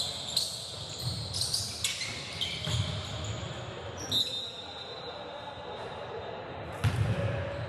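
Basketball game on a hardwood court: sneakers squeaking in short high chirps and a basketball bouncing, with players' voices calling out. A louder thump about seven seconds in.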